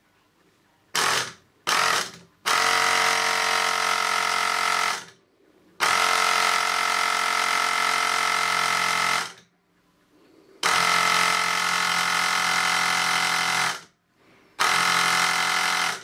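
Bosch PAG12V cordless air pump's compressor running in bursts as its trigger is pulled and released: two short blips, then longer runs of about three seconds each with short pauses between. It is pumping air into a combi boiler's expansion vessel through the Schrader valve, raising its charge from about half a bar toward 0.9 bar.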